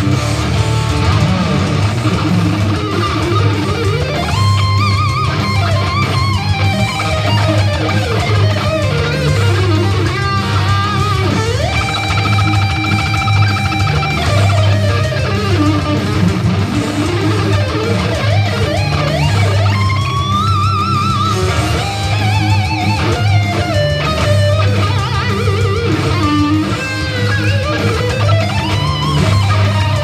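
Electric guitar played through a Kemper Profiler amp modeller: fast heavy-metal lead lines with string bends and vibrato, and one long held note partway through, over a steady low rhythm.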